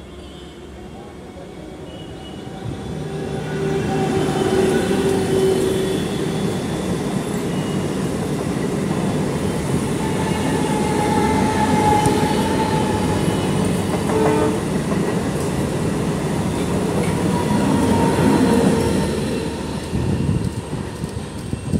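Diesel locomotive hauling a container freight train, its engine running and wheels rumbling on the rails as it approaches. It grows louder over the first four seconds or so, then holds steady.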